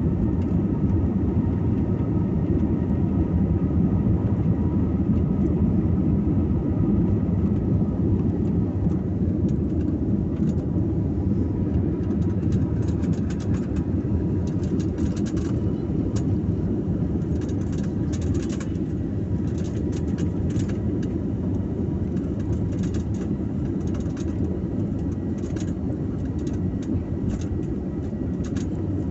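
Airbus A321neo jet engines heard inside the cabin at high thrust during the takeoff roll: a loud, steady roar with a few steady whining tones. From about ten seconds in, a growing run of quick knocks and rattles is heard as the aircraft rolls along the runway.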